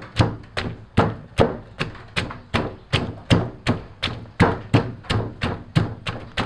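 Wooden pestle pounding snake beans, lime pieces, garlic and chilies in a wooden mortar, a steady run of thuds about three a second, bruising them for green papaya salad.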